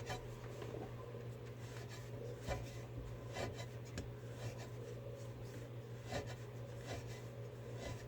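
Hand-tightening a vessel sink's drain fitting: quiet rubbing and scraping of the threads and parts, with scattered small clicks.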